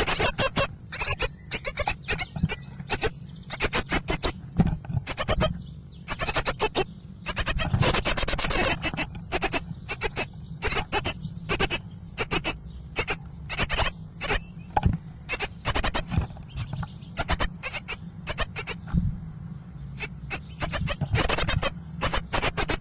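Great tit nestlings begging in the nest box: a rapid, near-continuous chorus of short, high, harsh calls, with a low hum underneath.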